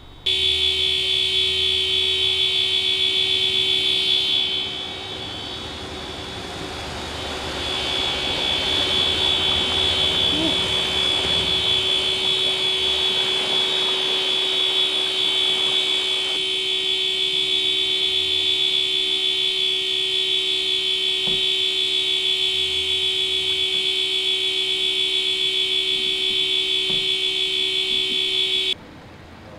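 A continuous high-pitched alarm tone, holding steady. It starts suddenly, dips in level a few seconds in, then comes back and cuts off suddenly near the end.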